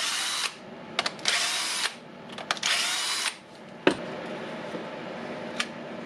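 Cordless drill-driver backing out the screws of a Milwaukee M12 battery's plastic housing, in three short runs of under a second each with sharp clicks between. After about three seconds the drill stops, leaving only a few quiet clicks.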